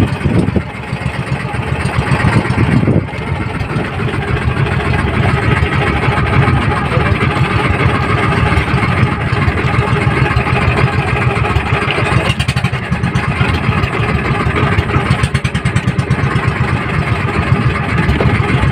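Outrigger boat's engine running steadily under way, a continuous fast low chugging.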